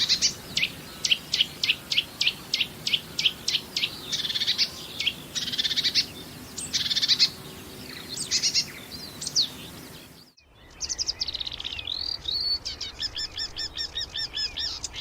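Marsh warbler singing its fast, varied song: quick runs of sharp notes and trills, a song that mixes in imitations of other birds' calls. About ten seconds in, the sound cuts out briefly and a different recording begins, ending in a run of evenly repeated notes.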